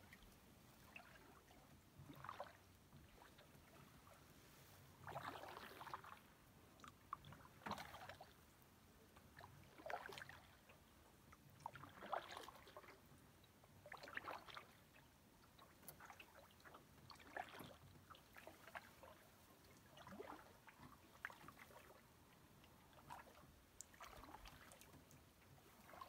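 Faint canoe paddle strokes in still water: a soft swish and splash with small drips about every two to three seconds.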